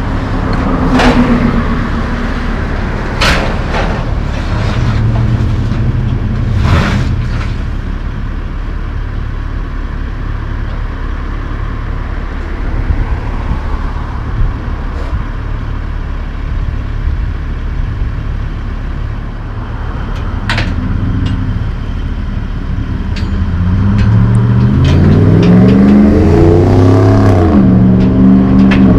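Engines running steadily while a cargo van is driven up the steel ramps of a car-carrier trailer, with a few sharp metal clanks. Near the end an engine grows louder and its pitch climbs and falls.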